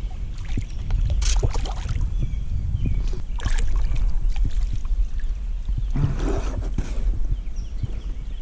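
Water splashing and knocks against a kayak as a hooked chain pickerel is brought to the net, with a steady low rumble underneath. Three stronger bursts of splashing come about a second in, near the middle and near the end.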